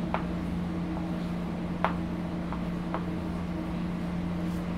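A steady low mechanical hum, with a few faint ticks or taps, the clearest about two seconds in.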